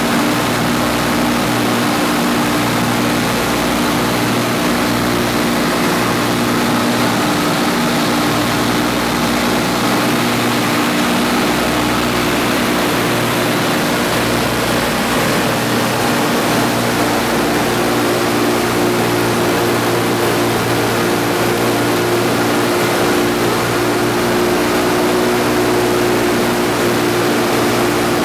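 The four Wright R-1820 Cyclone nine-cylinder radial engines of a B-17G running steadily in flight, propellers turning, heard from inside the fuselage as a loud, even drone with a hiss of rushing air.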